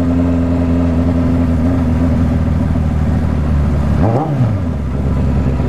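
Suzuki GSX750F motorcycle's inline-four engine running steadily under way, with a brief rise and fall in pitch about four seconds in.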